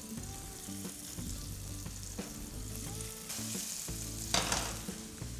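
Halved potatoes sizzling as they are laid cut side down in a hot frying pan with pancetta fat and olive oil, to brown and crisp. The sizzling is steady, with a louder burst a little after four seconds in.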